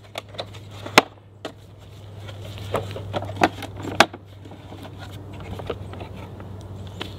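Hard plastic clicks and knocks as a Cleanwaste folding portable toilet is unfolded: its legs and body are swung out and snapped into place and it is set down on the ground. Several sharp clicks come in the first second and a half, then a cluster of knocks around three to four seconds in.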